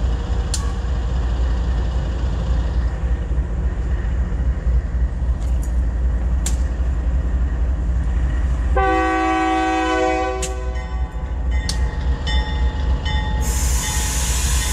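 Diesel-electric helper locomotive backing slowly past at close range, its engine rumbling steadily. Its horn sounds once, for about a second and a half, about nine seconds in. A hiss of air comes near the end, and a few sharp clicks are scattered through.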